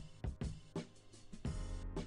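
Background music with a steady drum-kit beat; a deep bass note comes in about three-quarters of the way through.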